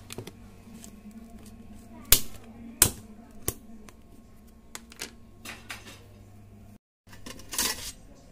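Sharp clicks and taps of fingers on a plastic food container and its lid, with three louder clicks about two to three and a half seconds in, over a faint steady hum. After a short break near the end, a brief metallic rattle of spoons pulled from a metal utensil holder.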